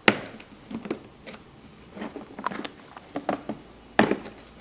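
Handling noise from a plastic toy storage tub: a scattered series of short, sharp clicks and knocks, loudest just after the start and again about four seconds in.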